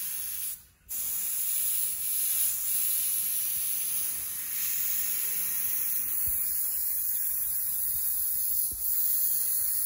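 Airbrush hissing steadily as it sprays black paint. The hiss cuts out for a moment about half a second in, then resumes.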